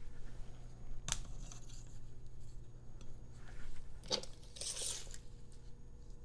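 Handling noise from a stereo microphone bar as its mic mounts are slid and repositioned: a sharp click about a second in, another click about four seconds in, then a brief scraping rustle, over a faint steady hum.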